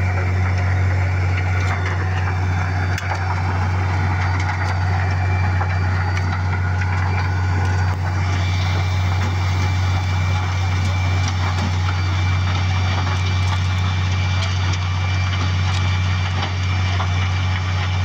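Wirtgen WR 240 soil recycler and stabilizer working, its diesel engine running steadily: a deep, even hum with a constant rushing noise above it.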